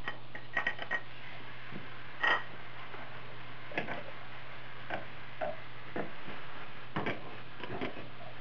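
Wooden spatula knocking and scraping against a nonstick pan while meat filling is stir-fried, as irregular light clicks and knocks, the loudest a little over two seconds in.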